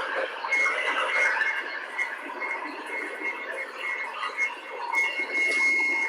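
Eureka Precision upright vacuum cleaner running and picking up aspen shavings. Its high motor-fan whine comes and goes over a crackling rattle as the shavings are drawn through the direct-air fan into the bag.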